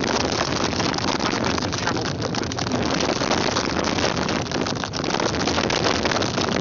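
Wind rushing and buffeting over a phone's microphone as a bicycle is ridden hard, a loud, steady noise with no voice in it.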